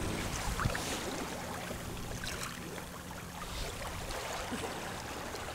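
Water rushing and splashing along the hull of a MacGregor 26M sailboat under way, a steady hiss with a faint low hum beneath it.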